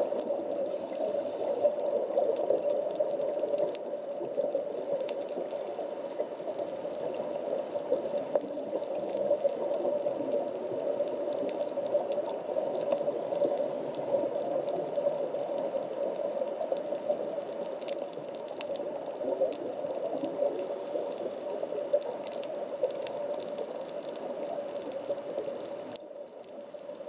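Underwater ambience of a coral reef at 15 m depth, picked up through a camera's waterproof housing: a steady, muffled water noise with faint scattered clicks.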